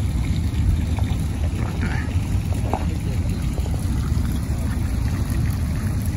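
Steady low rumble of wind buffeting the microphone outdoors, with faint water sounds from the pond.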